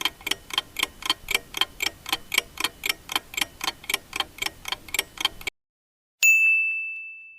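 Countdown timer sound effect: clock-like ticking at about four ticks a second that stops, then a single bell ding that rings out and fades, marking that the time to answer is up.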